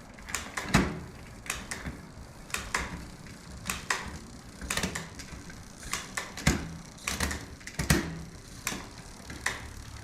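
Irregular sharp clicks, some in quick pairs, from an e-bike's rear drivetrain and hub on a repair stand as the wheel is turned and the gears are tried after a derailleur adjustment.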